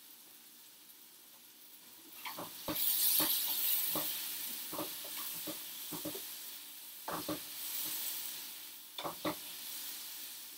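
Diced mushrooms sizzling in oil in a frying pan as they are stirred with a utensil, starting about two seconds in, with about a dozen uneven taps and scrapes against the pan. The sizzle is loudest soon after the stirring begins and eases toward the end. The mushrooms have given up their water and are soaking up the oil.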